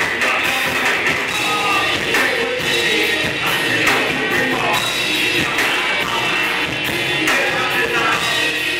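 Live rock band playing loudly: drum kit, electric guitar and keyboard under vocals into microphones, steady with no pause.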